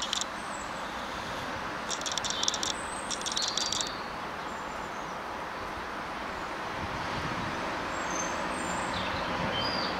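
Steady outdoor background noise of distant road traffic, swelling slightly near the end. A small bird gives two short bursts of rapid high chattering calls about two and three seconds in, with a few faint thin chirps later.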